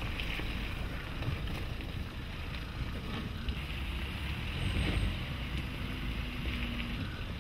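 The Nissan X-Trail's 1.6 dCi diesel running at low revs as the SUV drives slowly over uneven grassy ground, with wind noise on the microphone.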